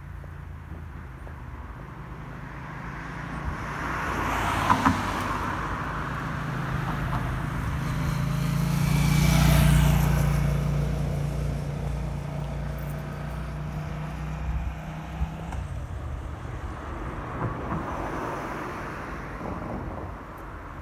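Road traffic: a motor vehicle's low engine hum grows louder to a peak about halfway through, then fades away, and a second vehicle passes more softly near the end. Two short sharp knocks come at about five seconds in.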